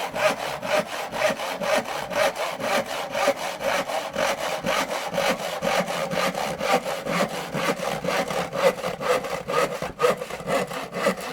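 Hand saw cutting through wood in quick, even strokes, about five a second.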